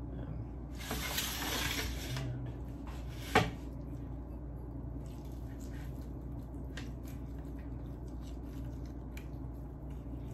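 Kitchen handling noise while a raw chicken is seasoned: about a second in, a short hissing rush lasting a second or so, then a single sharp knock a little past three seconds, followed by faint small clicks and rustles.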